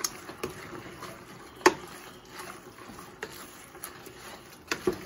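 Wooden spoon stirring wet ground beef in a stainless steel stockpot, with soft scraping and several sharp knocks of the spoon against the pot, the loudest about a second and a half in.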